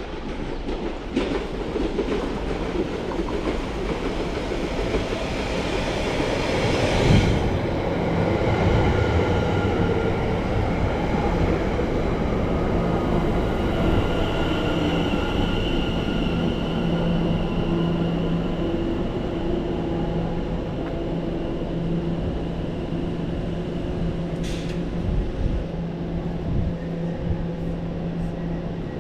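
London Overground Class 710 electric train arriving at the platform: its running noise builds as it approaches and is loudest about seven seconds in as the front passes, then gives way to a steady hum as it slows and stands. A single sharp click comes near the end.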